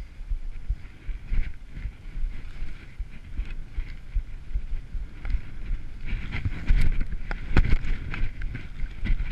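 Skis sliding and scraping over tracked-out snow, with wind buffeting the camera microphone. It gets louder about six seconds in, with a few sharp clatters from the skis.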